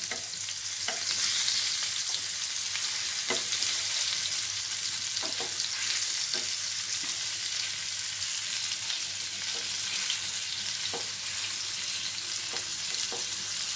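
Halved pointed gourds (potol) shallow-frying in mustard oil in a non-stick pan give a steady sizzle. A spatula taps and scrapes against the pan now and then as the pieces are turned over.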